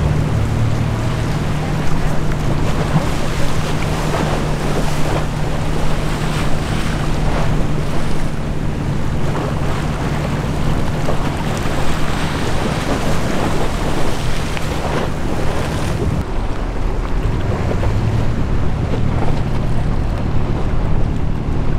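Strong wind buffeting the microphone over waves, with a low steady hum from a passing ship. About sixteen seconds in, the sound changes abruptly: the hiss loses its top end and the hum shifts.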